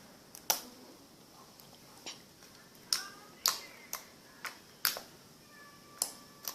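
Freshly made, sticky homemade slime being handled and stretched in the hands, giving off sharp, irregular popping clicks, about ten of them.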